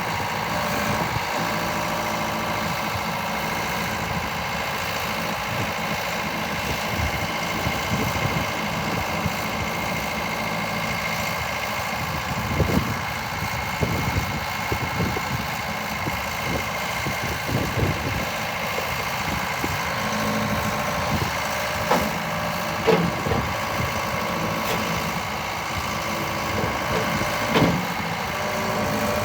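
Case 1845C skid steer's diesel engine running steadily at idle, with a few short sharp knocks about halfway through and again later on.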